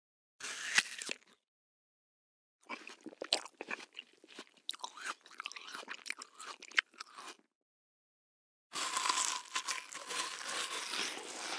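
A person biting and chewing crunchy food, as separate sound-effect clips: a single short crunch, then about five seconds of irregular chewing crunches, then a denser, continuous crunching starting near the end.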